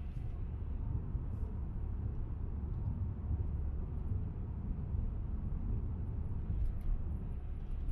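Car driving at road speed: a steady low rumble of tyre and engine noise.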